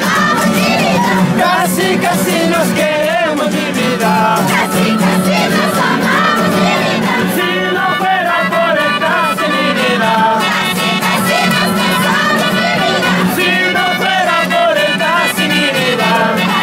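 Live Andean San Juan festival music from a close group: strummed acoustic guitars and a melodica playing, with men singing and shouting along amid a crowd.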